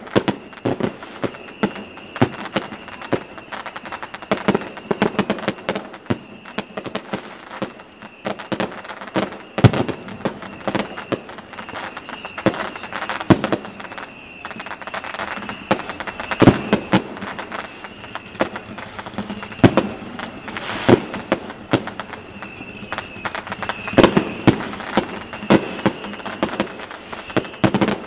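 Fireworks display going off: a dense, irregular string of bangs and crackles, with several heavier booms scattered through, over a faint steady high tone.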